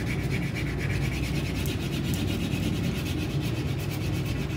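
Yellow crayon scrubbing rapidly back and forth on paper laid on a table, colouring in an area with quick, even strokes.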